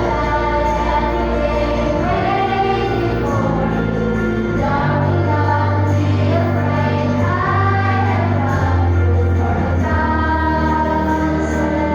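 A choir singing a song over instrumental accompaniment with sustained bass notes.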